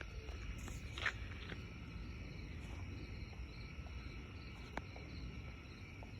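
Quiet outdoor ambience: a steady low rumble with a faint, steady high-pitched hum above it. A few small clicks stand out, the loudest about a second in and another near five seconds.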